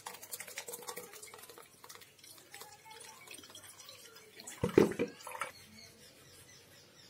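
Thick blended star fruit pulp and juice poured from a plastic blender jar into a steel mesh strainer, splashing and dripping through with small clinks. A louder knock or clatter comes about two-thirds of the way through.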